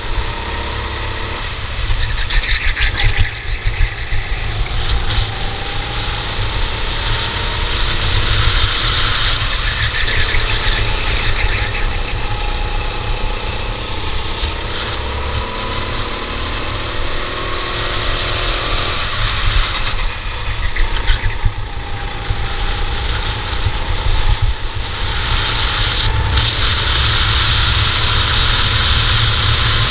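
Cadet go-kart engine running at racing speed, its pitch climbing and dropping again and again as the throttle is opened and lifted, over a heavy low rumble.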